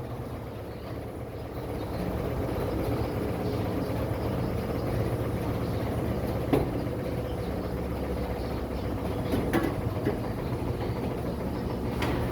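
A steady low machine hum, a little louder about two seconds in, with a few sharp clicks of metal parts being handled.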